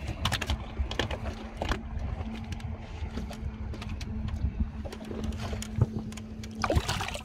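Scattered light clicks and knocks of handling on a fishing boat over a steady low hum and rumble.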